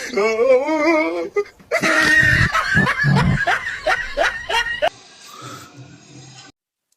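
A person laughing in short bursts, cutting off abruptly shortly before the end.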